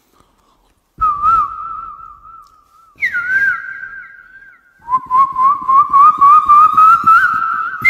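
A man whistling with his mouth in imitation of bird song: a warbling whistle in three phrases, starting about a second in, the second pitched higher and the third lower and slowly climbing.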